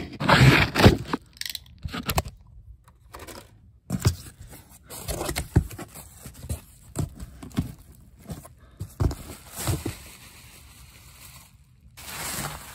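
Bubble wrap and plastic packaging crinkling and rustling as it is handled and pulled away during unpacking, with irregular scrapes and small knocks. The louder handling noise comes in the first second.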